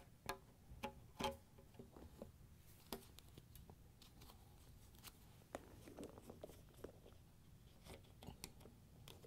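Faint, scattered clicks and short scrapes of pliers squeezing a wire spring hose clamp and working it onto the rubber end of a washer drain hose, over near silence.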